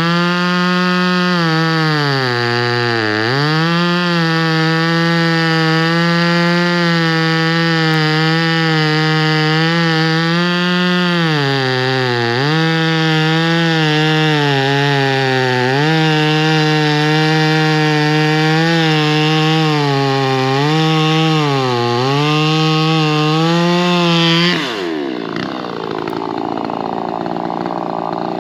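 VEVOR 58cc two-stroke gas chainsaw running at high revs while cutting wood. Its engine note dips again and again as the chain loads up in the cut, then recovers. About four seconds before the end the steady engine note falls away, leaving a rougher, noisier sound.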